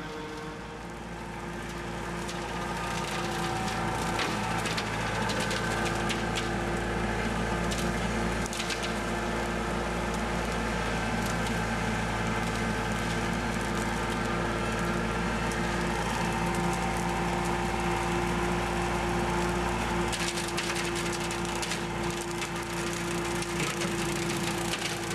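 Kubota compact tractor's engine running steadily under load as its rear rotary mower cuts through tall weeds and brush, with frequent crackling and snapping of stems being chopped.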